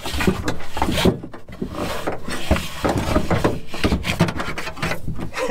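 A thick red battery cable, made of 1-gauge welding cable, being pulled hand over hand out of a car body, its rubber jacket dragging and rubbing against panels and carpet with irregular scrapes and knocks.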